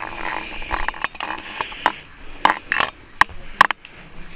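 Irregular sharp clicks and knocks, a dozen or so, over a faint hiss.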